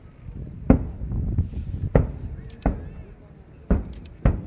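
Aerial firework shells bursting overhead: five deep booms about a second apart, each trailing off in a low rumble, with faint crackles between them.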